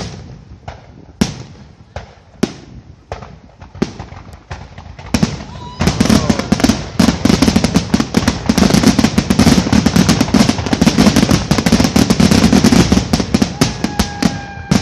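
Aerial firework shells bursting: separate booms about a second apart at first, then from about six seconds in a dense, rapid barrage of many reports overlapping.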